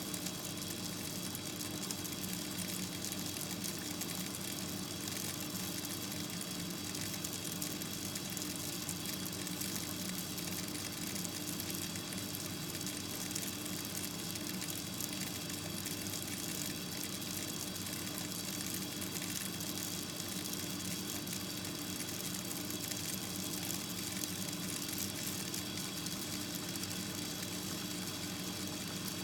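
Steady hiss with a faint low hum, unchanging and without distinct events.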